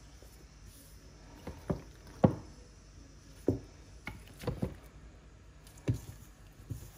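Chicken wings being put into and coated in seasoned flour in a stainless steel mixing bowl: several irregular dull knocks as the pieces and the bowl bump, the loudest a little over two seconds in.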